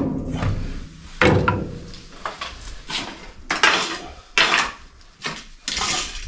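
Split firewood being loaded into a stove's firebox: a string of separate wooden knocks and clunks, with some scraping, as the pieces are set against each other and the stove.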